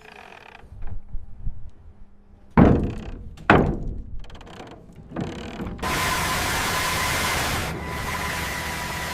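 RC model construction machinery: a few small mechanical clicks, then two heavy clunks about a second apart. After that a steady hissing whir with a thin whine sets in and runs on.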